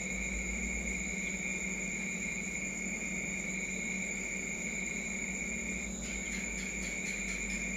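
Steady high-pitched insect trilling with a low steady hum beneath it. About six seconds in, a short run of faint clicks.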